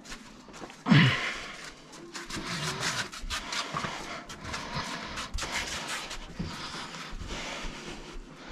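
A man straining under the weight of a cast-iron wood-burning cookstove as he carries it: a short grunt about a second in, then heavy breathing over irregular scuffs and knocks of footsteps and handling.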